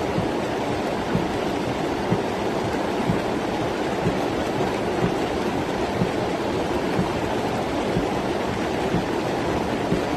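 Rainwater rushing along a street flooded about 50 cm deep, a steady loud wash of flowing water. A faint low knock sounds about once a second underneath.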